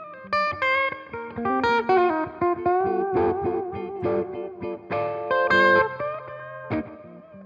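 1980 Greco EG-500 electric guitar with Maxon humbuckers, played through a Headstrong Royal Reverb valve amp with effects. Chords and single-note lines ring out, and a few seconds in some held notes waver with vibrato.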